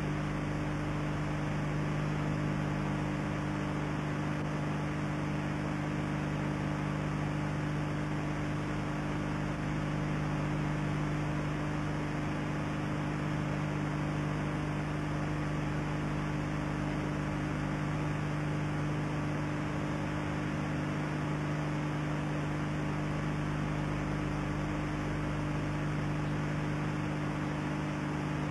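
Steady electrical mains hum with a layer of hiss on the sound track of an old analog video recording.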